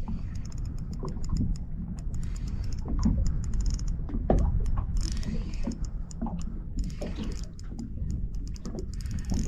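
Fishing reel being wound in against a hooked fish, a giant trevally: a run of quick, irregular mechanical clicks over a low steady rumble.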